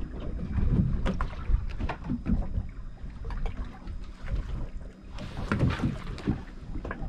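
Water slapping against a boat's hull with wind on the microphone and scattered knocks, and a brief louder hiss about five seconds in.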